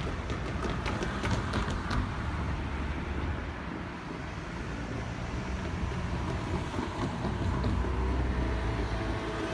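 Low, steady rumble of road traffic, with a few faint clicks in the first two seconds.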